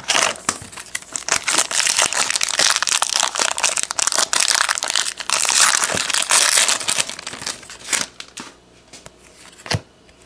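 Foil wrapper of a 2016 Bowman Platinum baseball card pack crinkling as it is handled and torn open, dying down about eight seconds in. A few faint clicks follow as the cards are handled.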